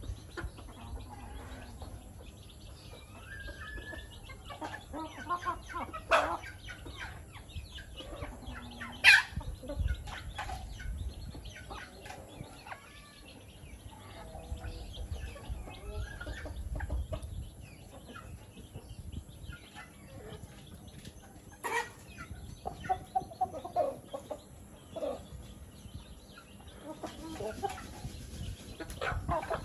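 A flock of young chickens clucking and peeping as they peck feed from bare dirt, with many short overlapping calls. A few sudden louder sounds stand out, the loudest about nine seconds in.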